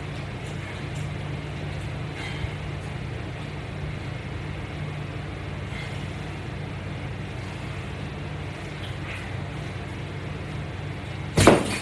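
Steady low background hum with a few faint clicks, and one short loud thump-like noise near the end.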